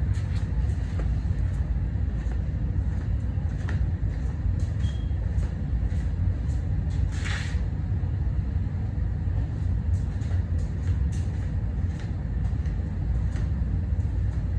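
A steady low rumble, with a few faint light clicks and one short scraping hiss about seven seconds in.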